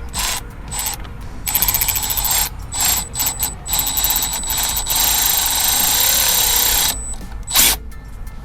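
Cordless power driver running bolts: several short bursts, then one long run of about three seconds with a steady high motor whine, and a last short burst near the end.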